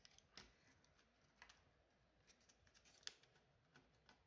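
Very quiet handling of a laptop's motherboard and plastic parts, with a handful of faint, sharp clicks and ticks as the board is worked loose by hand; the sharpest click comes about three seconds in.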